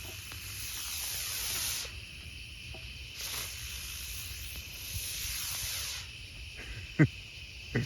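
Aerial spinner firework hissing as it burns, the hiss swelling and fading in surges, with two sharp pops near the end.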